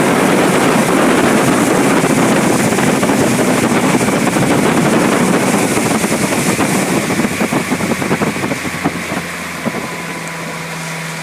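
Boat motor running on open water with heavy wind and water rush, which dies away about eight seconds in, leaving a steady low engine hum as the boat slows.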